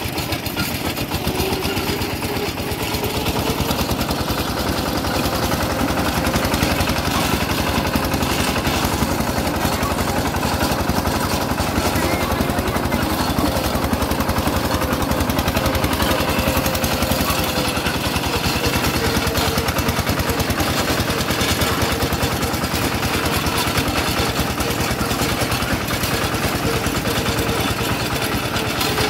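Single-cylinder diesel engine of a two-wheel hand tractor running steadily under way, a rapid even chugging of exhaust beats with clatter over a bumpy dirt road.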